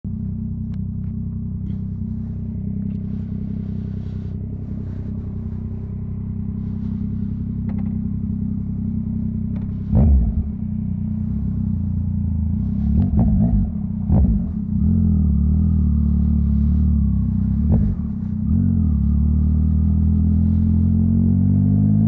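Yamaha MT-09's inline three-cylinder engine idling steadily, with a sharp throttle blip about halfway through, two or three more a few seconds later and one more near the end. Right at the end the revs begin to rise.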